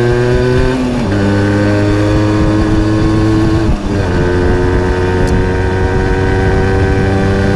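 Simson S51 moped's single-cylinder two-stroke engine pulling along under way, with wind and gravel noise. The engine note drops in a step about a second in and again just before four seconds, as it shifts up through the gears, then holds steady.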